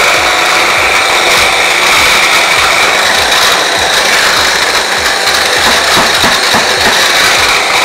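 Electric mini chopper running steadily, its motor giving a high whine as the blades whiz garlic, chipotle paste, spices, whole peppercorns and olive oil into a paste, with uneven churning and knocking of the pieces in the bowl underneath.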